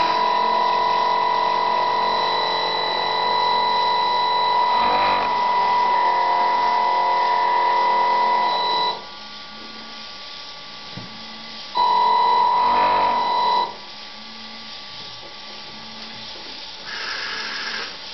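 Sound module of a Robbe RC model rescue cruiser giving a steady, high electronic horn-like tone. It holds for about nine seconds, stops, and sounds again briefly about twelve seconds in, over a low hum.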